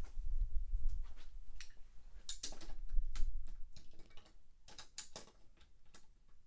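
Scattered small plastic clicks and taps as die-cast toy cars are handled and set into the starting gate of an orange plastic racing track. The clicks come in two loose clusters, one a couple of seconds in and one around the fifth second.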